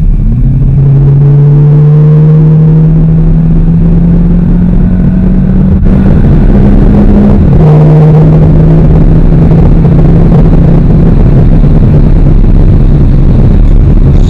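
Chrysler 200C's four-cylinder engine heard from inside the cabin while accelerating: its drone rises slowly in pitch for about seven seconds, drops suddenly as the automatic transmission shifts up, then runs on steadily over road rumble.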